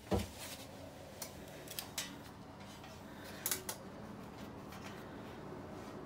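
A refrigerator's plug is pushed into the outlet with a sharp click, and a low steady hum sets in after it. Several more sharp clicks and clatter follow as multimeter test leads and wiring are handled.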